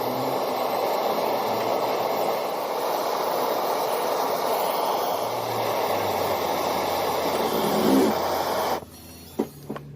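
Steady rushing noise with no clear pitch that cuts off suddenly near the end.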